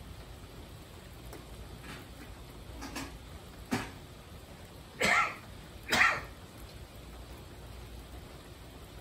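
Steady faint rain hiss, broken by four short loud sounds between about three and six seconds in, each a few tenths of a second long, the last two the loudest.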